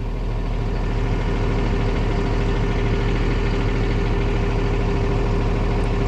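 The bus's 5.9-litre Cummins diesel engine idling steadily, heard up close from underneath.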